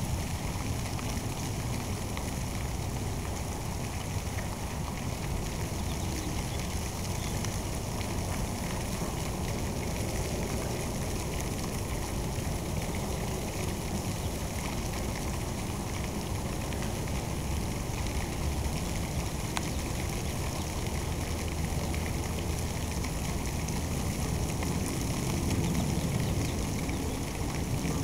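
Steady outdoor background noise: a low rumble under an even hiss, swelling slightly near the end.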